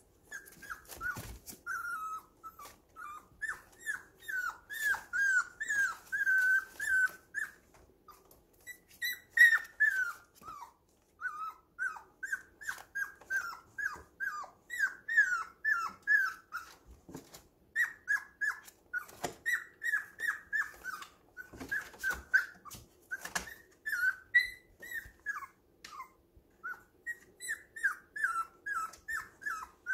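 Puppy whimpering: runs of short, high cries, several a second, each falling in pitch, with brief pauses between runs.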